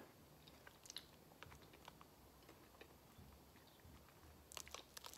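Faint chewing of a soft watermelon-flavoured Pulparindots tamarind candy ball, with small mouth clicks and a few light crackles near the end.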